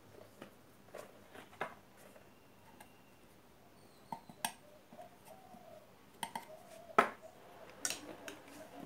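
Scattered light clicks and taps of small metal parts and tools being handled against a car amplifier's metal heatsink plate on a wooden bench, with a sharper knock about seven seconds in.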